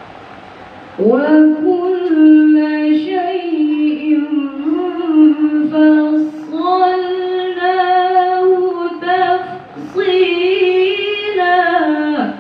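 A young woman reciting the Quran in Arabic in the melodic tilawah style, into a microphone: long held, ornamented notes that waver and slide, starting about a second in, with one short break for breath near three-quarters of the way through.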